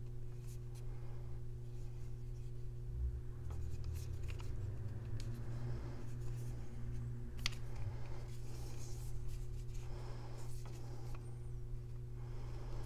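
Byrna Boost adapter halves being handled and pressed onto a Byrna SD launcher: faint rubbing and scattered small clicks as the two halves fail to clip together at the top, over a steady low hum.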